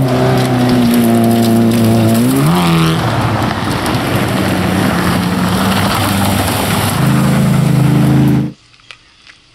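Rally car engine running hard through a gravel corner. The note dips and then climbs sharply about two and a half seconds in, followed by a steady hiss from the tyres on gravel. A second vehicle's engine comes in near the end, and about eight and a half seconds in the sound cuts off suddenly.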